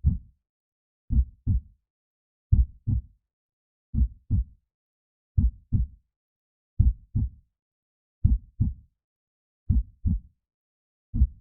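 Slow heartbeat: paired lub-dub thumps, deep and dull, repeating evenly about once every second and a half with silence between beats.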